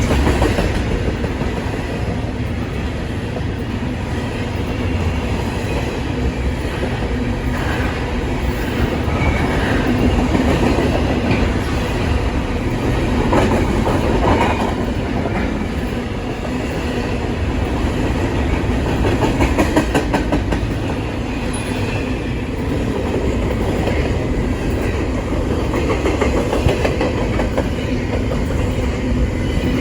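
A train rolling past, its cars' wheels clicking over the rail joints above a steady rumble.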